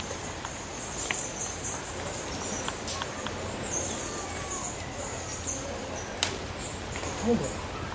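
Outdoor ambience of high insect buzzing that fades in and out, with faint bird chirps and a few sharp clicks.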